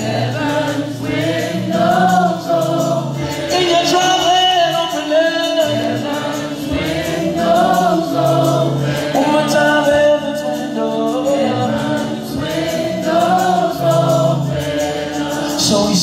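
Gospel worship team singing in harmony into microphones, lead and backing voices together, over held low accompanying notes.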